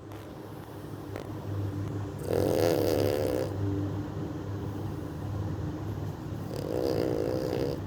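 Sleeping puppy snoring: two snores about four seconds apart, each lasting about a second.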